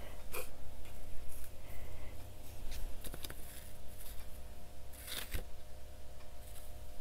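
Paper and gold leaf rustling and scraping in short, irregular strokes as fingers rub the leaf down onto a glued journal page.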